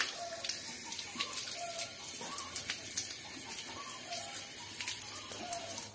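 Tap water running and splashing over hands and wrists as they are wetted under the stream, a steady hiss broken by irregular splashes.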